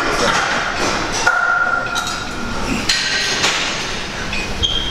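Metal gym weights clanking: a scatter of sharp metallic knocks and clinks, one ringing on briefly about a second in.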